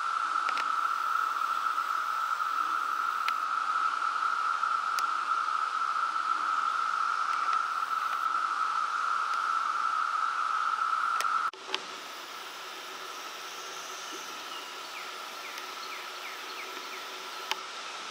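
Insect chorus: a steady, shrill droning hiss held on one pitch, which drops sharply in level about eleven and a half seconds in and then carries on more faintly.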